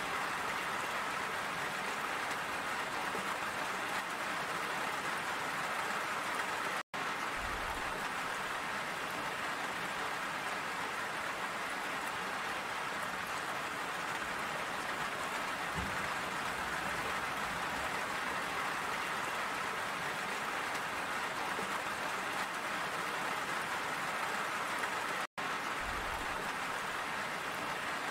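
Steady, dense rain falling, an even hiss. It cuts out to silence for an instant twice, about 7 and 25 seconds in.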